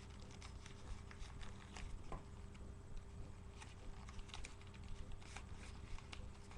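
Paper rustling and crinkling in the hands as rolled paper pieces are folded and slid into each other, a scatter of small irregular crackles over a faint steady hum.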